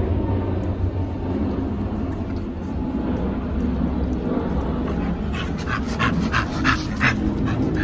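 Pit bull panting quickly, short breaths at about four a second, in the last couple of seconds, over a steady low rumble.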